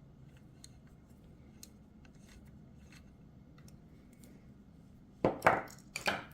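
Faint, scattered clicks of a hex key working small bolts, then two loud clattering knocks of metal parts, about five and six seconds in.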